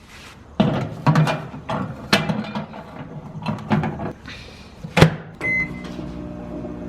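Clattering knocks of a microwave's turntable plate and door being handled, then the door shutting with a sharp loud click about five seconds in. A short keypad beep follows, and the microwave oven starts running with a steady low hum.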